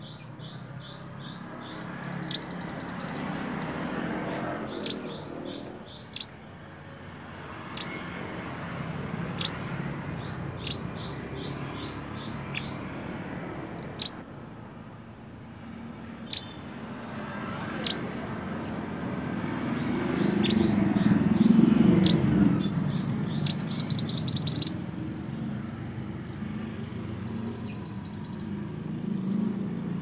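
Male minivet (mantenan) singing: quick series of high chirps and short buzzy trills, with single sharp notes spaced between them; the loudest trill comes about three quarters through. A low rumble swells in the background around two thirds through.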